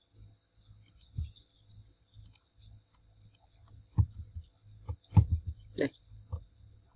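A few sharp clicks and low thumps, about a second in and then several between four and six and a half seconds, typical of a computer mouse being clicked at a desk. A faint low hum pulses underneath.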